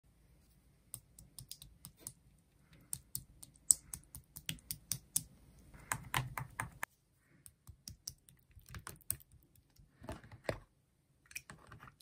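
Plastic spoon poking and pressing soft slime in plastic tubs: a run of irregular crisp clicks and small sticky pops, thickest about six seconds in.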